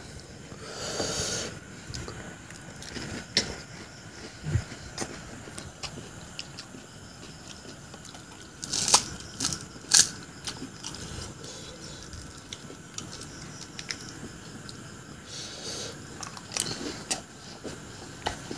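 Pani puri being eaten close to a clip-on microphone: crisp puri shells cracking and being crunched and chewed, with scattered sharp cracks, the two loudest about nine and ten seconds in.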